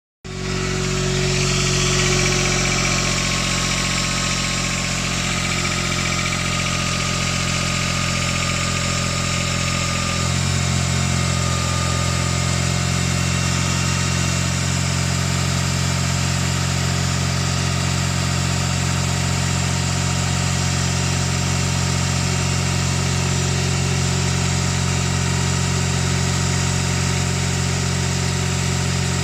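Smart Roadster's three-cylinder turbo petrol engine idling from a cold start, with the knock that the owner hears on cold start. The idle note changes about ten seconds in, then runs steadily.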